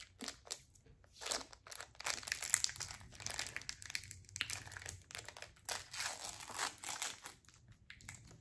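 Candy wrapper crinkling and crackling in irregular bursts as it is worked open by hand.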